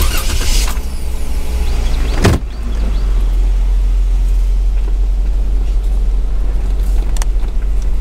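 2013 Jeep Wrangler Unlimited on the move with the windows down: a steady low rumble of engine, road and wind noise, with a single sharp knock about two seconds in.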